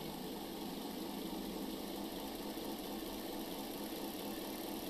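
Simulated diesel locomotive prime mover from a Tsunami DCC sound decoder, running steadily with the throttle turned up, mixed with the hum of a small DC test motor spinning.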